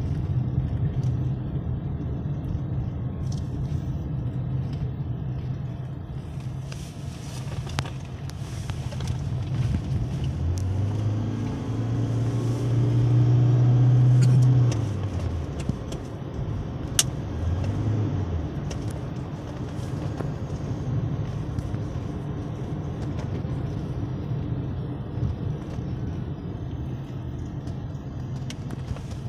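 Car cabin noise of a moving taxi: a steady low rumble of engine and tyres that grows louder for a few seconds about halfway through, with a single sharp click a little after.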